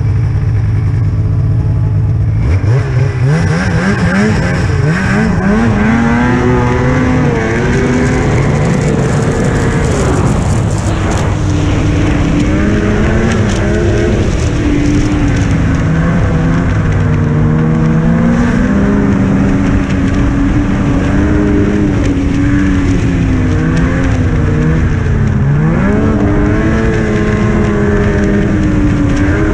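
Snowmobile engine idling, then opened up about two seconds in: its pitch rises as the sled accelerates away, and it keeps rising and falling with the throttle as the sled is ridden along the trail.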